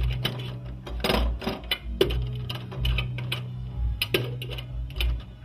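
Music-like soundtrack: a low pulsing bass and a steady low drone under a stream of irregular sharp clicks and clacks.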